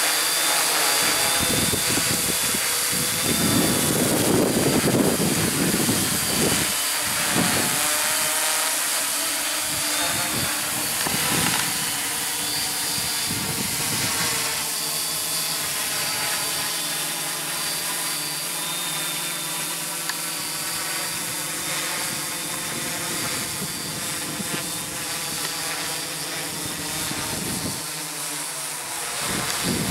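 A hexacopter's six brushless motors and propellers buzzing in flight: a steady, many-toned drone with a high whine, its pitch drifting a little as the motors adjust speed. It grows gradually fainter as the craft climbs away.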